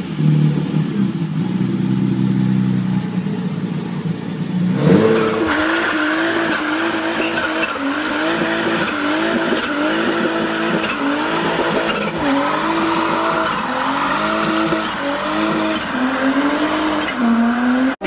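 A Nissan Skyline GT-R's twin-turbo RB26 straight-six running at steady revs for the first few seconds. Then a turbocharged Volvo 700-series sedan does a burnout: its engine revs up and down about once a second while the spinning rear tyres screech.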